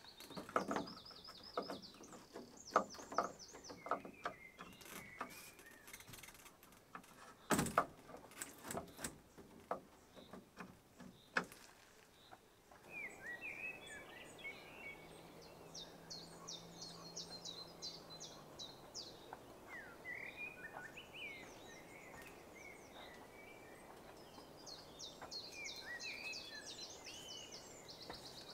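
Irregular knocks and taps, the loudest about three and seven seconds in, stop abruptly near the middle. Small birds then chirp and sing in quick repeated trills over a steady outdoor hiss.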